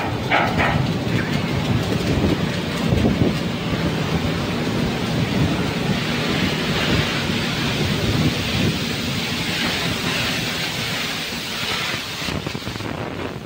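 Wind buffeting the microphone on the open deck of a ship under way, over a steady low rumble, with a hiss that swells in the middle and eases near the end.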